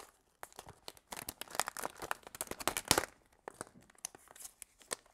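Packaging being unwrapped: irregular crinkling and tearing, with a sharp click at the very start.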